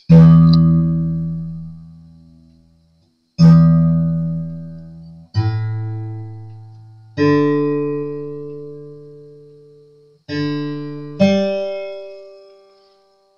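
Acoustic guitar strings plucked one at a time while being tuned up after restringing: six single notes, each left to ring and die away.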